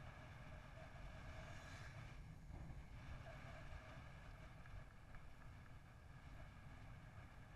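Faint, steady wind rumble on the microphone of a bicycle riding along at speed.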